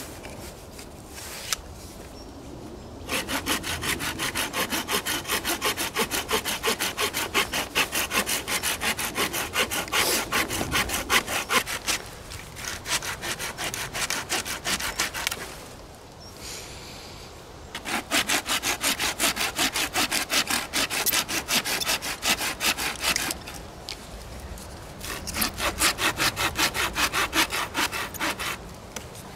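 Folding hand saw cutting through a wooden branch in quick, even back-and-forth strokes. The sawing comes in three spells with short pauses between them, starting about three seconds in.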